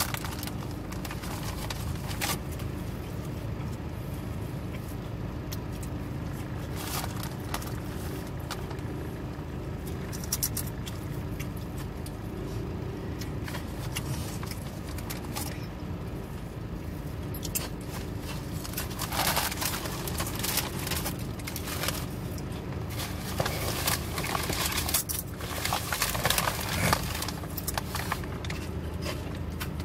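Plastic bag crinkling and rustling as food and items are handled inside a car, over a steady low cabin hum. The rustling and scraping come thicker and louder in the second half.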